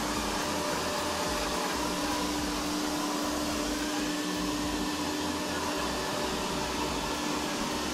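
360 S6 robot vacuum cleaner running on carpet: a steady whir of suction and brushes with a constant low hum.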